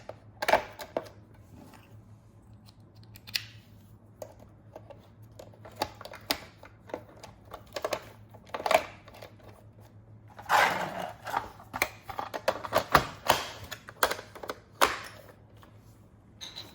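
Irregular plastic clicks, knocks and snaps of Roomba brushes and parts being handled and pressed back into place, busiest and loudest in a run of clicks in the second half.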